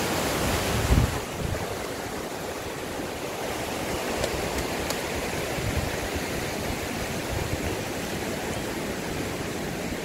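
Fast mountain river rushing over rocks: a steady wash of white-water noise. About a second in, after a low buffet on the microphone, it drops to a fainter rush.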